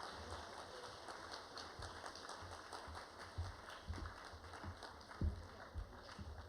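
Students in an assembly hall applauding, a fairly faint, steady patter of many hands clapping, with a few low thumps, the loudest about five seconds in.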